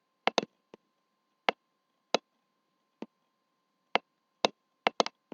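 Computer mouse clicking: about ten sharp, single clicks at irregular intervals of half a second to a second.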